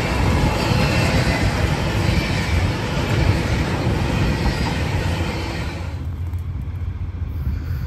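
A train passing on the rails with a loud, steady rumble. About six seconds in the higher wheel noise drops away, leaving a lower rumble.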